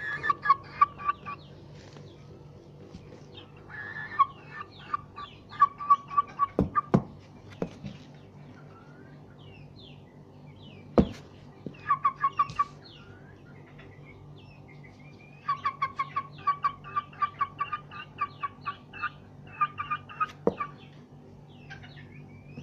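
Gamecock clucking in several runs of quick, short, repeated notes, with a few sharp knocks in between, the loudest about eleven seconds in. A steady low hum runs underneath.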